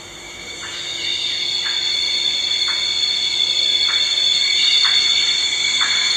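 Soundtrack music from a played video, swelling in over the first second: sustained high notes with a soft pulse about once a second.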